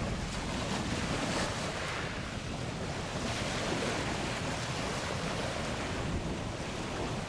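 Wind buffeting the microphone over open water, a steady rush of noise that swells in gusts, with waves on the water.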